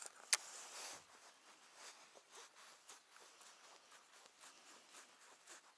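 Shimano Calcutta Conquest DC 200 baitcasting reel being handled: one sharp click shortly after the start, then a run of faint, irregular ticks as line is reeled in.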